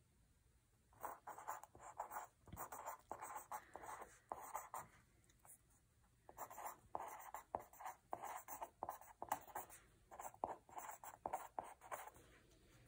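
Pen writing on paper: quick runs of short scratchy strokes as words are written out, with a short pause about five seconds in.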